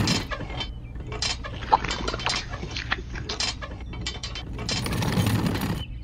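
Clicking and rattling of small toy parts as a miniature metal wheelbarrow and toy cement mixer are handled, with swells of scraping noise at the start and again about five seconds in.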